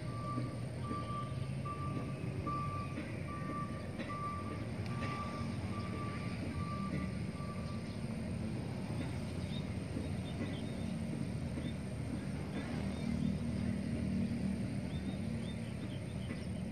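An electronic beep repeating at an even pace, about two and a half beeps a second, over a steady low rumble; the beeping stops about eight seconds in while the rumble goes on.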